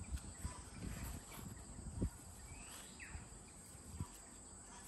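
Faint handling noise as a trailing plant is lifted out of a cardboard box packed with crumpled paper: a few light knocks and rustles, the firmest about two seconds in and another about four seconds in. Under it, a steady high insect hum and a short falling chirp a little past halfway.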